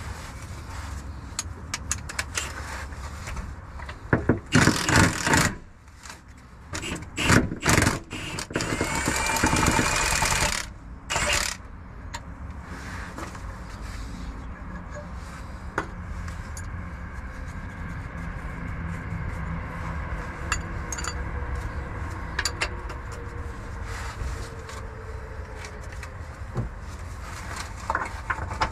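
Hand tools and a cordless power ratchet working on bolts under a car: scattered metal clanks and scraping, with several loud bursts in the first dozen seconds and again near the end, over a steady low rumble.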